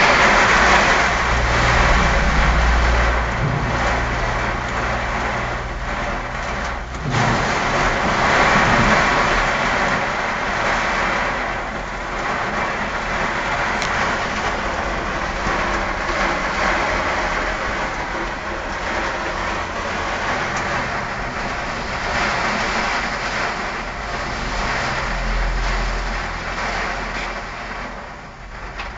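Heavy rain pouring down on a flooded road, a dense steady hiss, with motor vehicles driving through the water; an engine drone sits under the rain for the first seven seconds and again briefly near the end.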